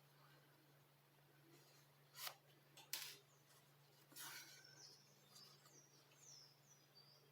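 Near silence: a quiet room with a steady low hum, broken by a few short rustles and a click from yarn being pulled through a crocheted piece during hand-sewing. Faint high bird chirps come in during the second half.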